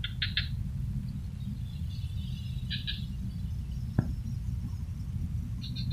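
Small birds chirping in short high clusters, near the start and again about three seconds in, over a steady low rumble, with one sharp click about four seconds in.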